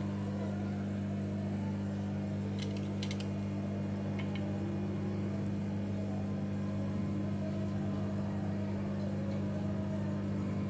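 A steady low hum made of several even tones, with a few faint light clicks about three and four seconds in.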